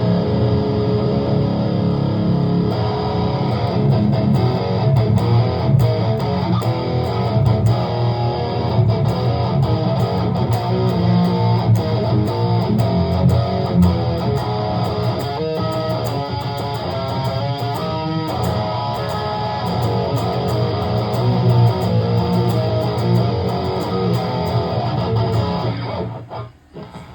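Electric guitar played through a Valeton GP200 LT multi-effects processor in a continuous passage of notes and chords. The playing stops about a second before the end, leaving only a faint tail.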